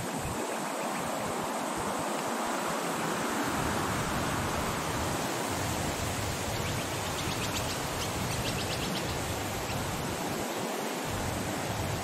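Wind blowing through a date palm grove: a steady rushing noise that swells a few seconds in.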